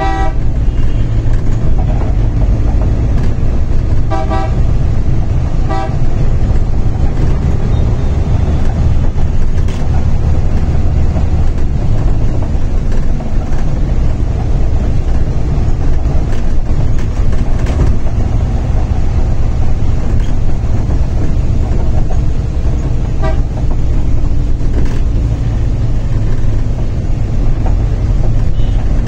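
Inside a Higer B80KL city bus under way: a steady low drone of the bus's engine and road noise, with short vehicle horn toots right at the start, around four and six seconds in, and once more near the end.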